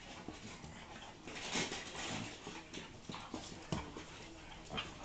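A pug puppy and an Akita-cross dog play-fighting on a laminate floor: irregular scuffling and snuffling, with a few sharp clicks, the loudest a little before four seconds in.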